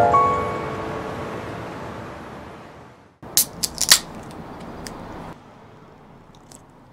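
Background music fading out, then a drink can's pull tab being cracked open: a quick cluster of sharp clicks and cracks about three and a half seconds in.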